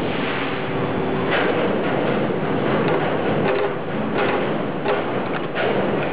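Automatic lead casting machine for car battery parts running with a steady mechanical noise, and a series of knocks and clanks in the second half as its mould plate moves.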